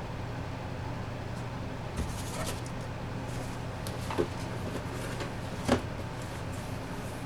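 Funko Pop boxes and packaging being handled: light rustling and three short knocks or clicks, the last one near the end the loudest, over a steady low hum.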